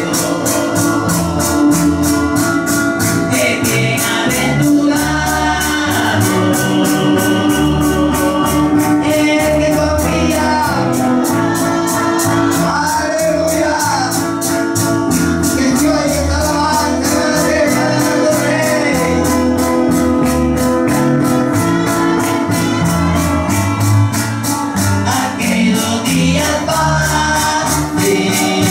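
Live gospel worship music: men singing a hymn over strummed acoustic guitars, a small high-pitched guitar, bass guitar and accordion, with a steady high percussion beat ticking throughout.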